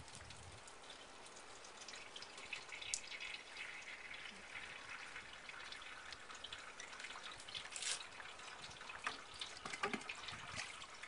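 Filtered water trickling steadily from the bottom of a gravity-fed AquaPail bucket filter into a clear plastic container below, faint, with a few light clicks.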